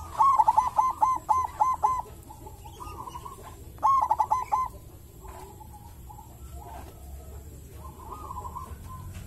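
Zebra dove (perkutut) cooing its song: a quick run of about seven clear coo notes in the first two seconds, a second, shorter run about four seconds in, and softer coos between.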